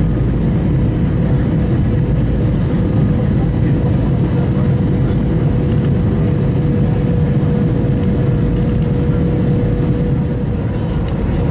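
Airbus A321-200 cabin noise at a window seat on descent: a steady roar of jet engines and airflow, with a thin, steady whine running through it.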